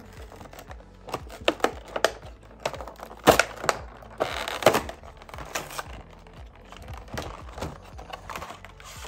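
Stiff clear plastic blister packaging crinkling and clicking as hands flex and squeeze it while trying to open it by hand, in irregular snaps and crackles with a longer crackle about four seconds in.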